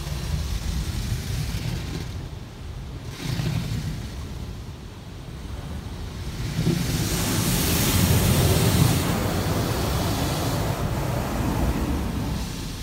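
Automatic car wash heard from inside the car: water spraying and streaming over the windshield over a low rumble, swelling to a loud rush about halfway through as rinse water sheets down the glass, then easing near the end.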